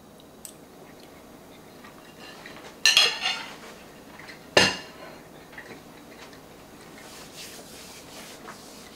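Metal fork and ceramic plate clinking: two sharp clinks about a second and a half apart, the first ringing briefly.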